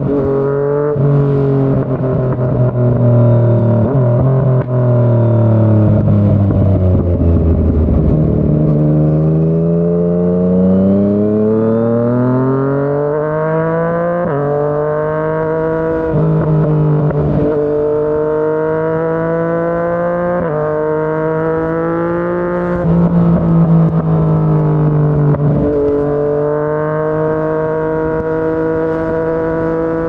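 Yamaha MT-09's inline-three engine through a Yoshimura R55 slip-on exhaust under way. The revs fall for about eight seconds, then climb, with the pitch jumping at several gear changes, and hold steady near the end.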